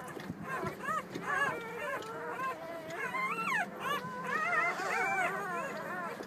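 A litter of four-day-old Labrador–Staffy cross puppies squeaking and whimpering. Several thin, high cries overlap, each rising and falling in pitch.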